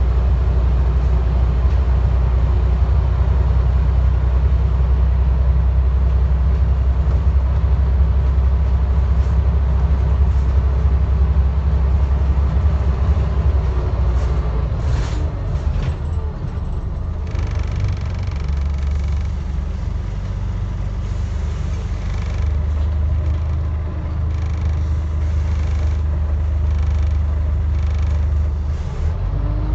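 Scania N94UD double-decker bus's rear-mounted engine running while the bus drives, heard from the back seats: a deep, steady drone. A few sharp clicks come about halfway through, and after them the drone dips a little before building again.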